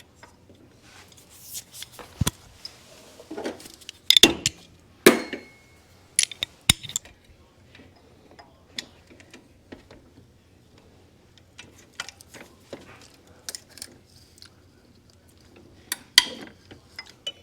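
Metal hand tools clinking and clanking in scattered bursts, with a few sharp knocks, as the air-conditioning compressor's mounting bolts are worked on.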